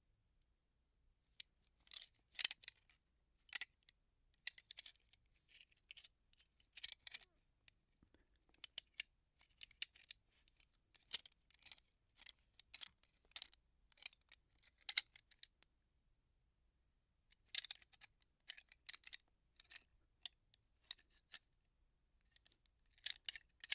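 Gun parts being handled: irregular sharp metallic clicks, snaps and short rattles, coming in clusters, with a pause of a couple of seconds about two-thirds of the way through.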